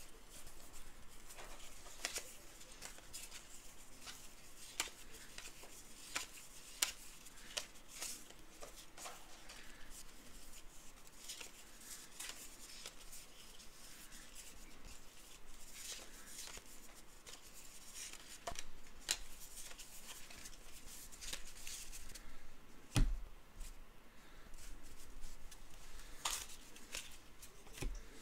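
Trading cards being handled and flipped through, a run of small crisp clicks and rustles, with one dull thump late on.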